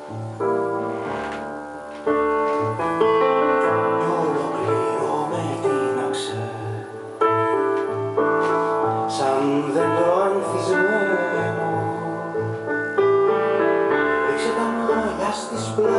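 Recorded music played back through a valve OTL amplifier and loudspeakers: an instrumental break between sung lines, with piano to the fore.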